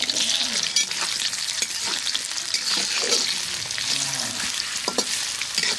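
Sliced onions and green chillies hitting hot oil in a karahi and sizzling steadily, stirred with a metal spatula that scrapes the pan now and then.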